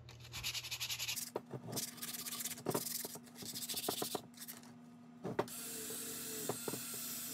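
Sandpaper rubbed by hand over a rusty steel hitch ball mount in quick, repeated strokes. About five seconds in, a cordless drill with a wire wheel starts and runs steadily against the rusty metal.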